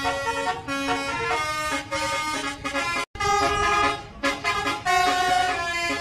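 Indonesian bus telolet horn, a set of multi-tone air horn trumpets, playing a tune of held notes that step up and down in pitch. The sound breaks off sharply for a moment about three seconds in.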